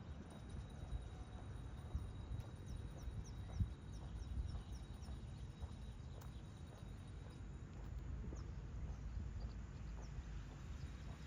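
Outdoor street ambience: a low steady rumble with soft, irregular footsteps. A bird gives a quick run of short, high, falling chirps a few seconds in and a few more near the end.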